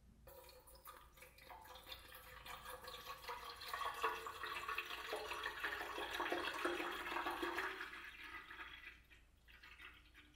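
Rust dissolver pouring from a plastic jug into a rusty steel fuel tank through its filler neck, filling the tank to soak out the rust. The pour builds over the first few seconds and tails off near the end.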